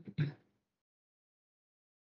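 A man's voice finishing a word in the first half second, then complete silence.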